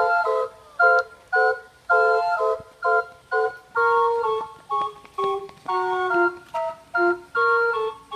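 Calliope playing a tune in short, chorded notes, about two a second, in the manner of carousel music.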